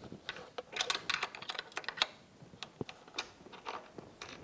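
Light, irregular metal clicks and taps from an 8mm wrench and a small latch bolt being worked loose by hand on an outboard's powerhead.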